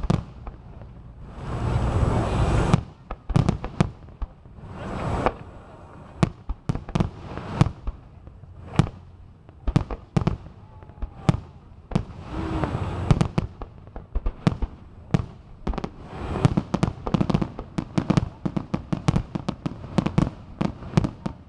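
Fireworks display: a rapid, irregular series of sharp bangs from bursting shells, broken by several longer rushing bursts lasting up to about a second and a half, the longest near the start.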